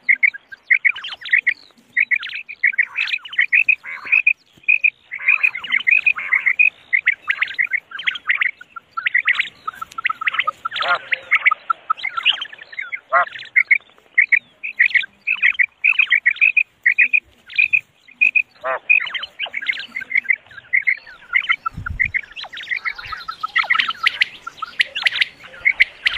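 Female common quails calling: a dense, rapid stream of short, high chirping notes.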